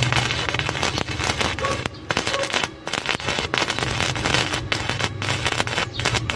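Stick-welding arc from a Makita MMA-400 inverter welder set to its full 400 amps, crackling steadily as the electrode burns onto a steel bar, with a few brief breaks.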